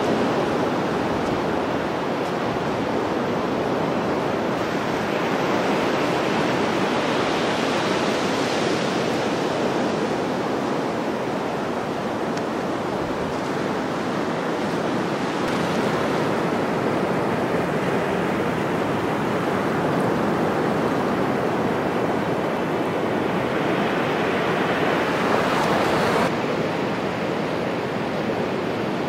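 Sea surf breaking and washing up a sandy beach, a steady rush that swells and eases every several seconds, with the hiss dropping abruptly near the end.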